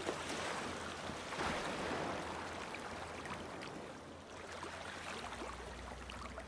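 Sea waves washing against rocks, a steady surge of water with gentle swells and small splashes.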